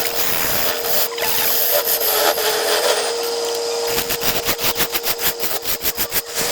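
Wood lathe running with a steady motor hum while a hand-held turning tool cuts the spinning wood. About two-thirds of the way in, the cut turns into a fast, even chatter of about eight pulses a second.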